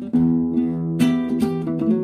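Background guitar music, with plucked notes and strummed chords.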